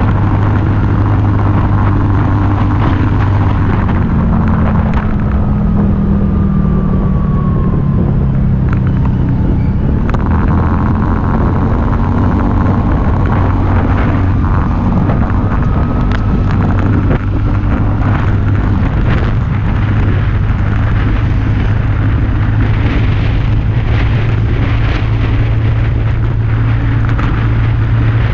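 Scooter's small engine running on the move. Its note drops for a few seconds near the middle as it slows, then climbs again as it speeds up, over a heavy low rumble. Scattered sharp knocks and rattles come from the loosely mounted camera vibrating.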